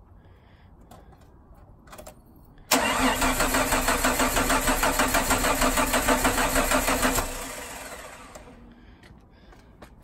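Starter cranking the Jeep TJ's 4.0-litre straight-six in steady, even pulses for about four and a half seconds. The engine never catches and the cranking stops with a short fade. This is a crank-no-start: the injectors have no power because of a blown fuse.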